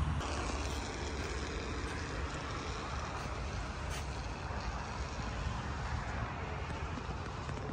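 Steady outdoor background noise, a low rumble with an even hiss and no distinct events.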